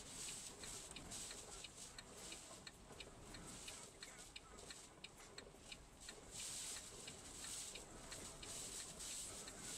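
Faint outdoor night ambience: a quick, regular high ticking, about three ticks a second, over a soft hiss that swells a few times in the second half.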